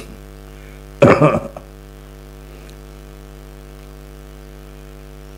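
Steady electrical mains hum with its row of overtones, broken about a second in by a brief spoken syllable from a man's voice.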